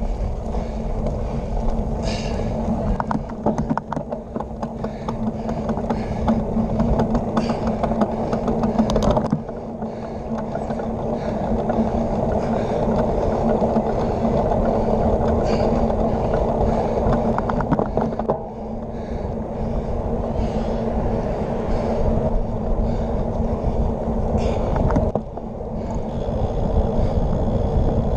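Riding noise from a drop-bar bicycle on asphalt, heard from a handlebar-mounted camera: wind rushing over the microphone and tyre rumble, with a steady low hum underneath. The level dips briefly three times.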